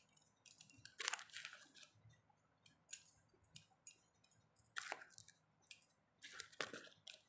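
Faint scrapes and light taps of a steel spoon in a stainless steel bowl as spice powder is sprinkled over bitter gourd pieces: a few brief, separate sounds, the first about a second in.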